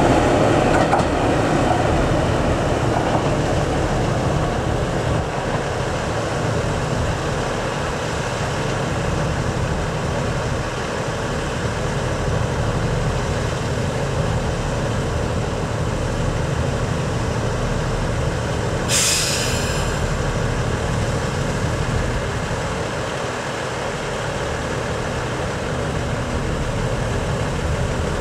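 JR Central KiHa 85 series diesel railcars running through the station, their Cummins diesel engines and the wheels on the rails making a steady rumble. A brief hiss cuts in about two-thirds of the way through.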